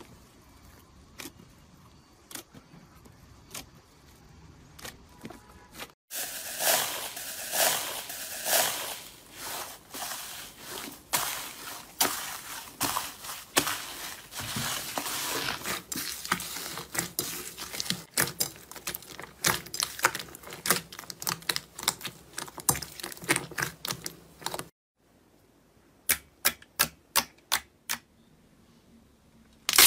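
Hands squishing slime, making sticky clicks and pops. From about six seconds in, a purple slime full of foam beads is worked in a bowl with dense crackling and crunching, and near the end a glossy slime is poked in a quick run of sharp pops.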